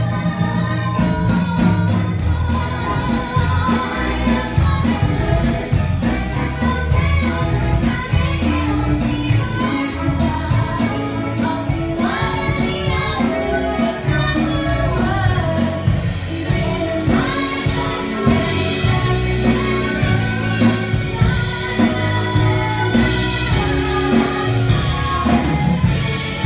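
A song: a group of voices singing over instrumental backing with a strong bass line.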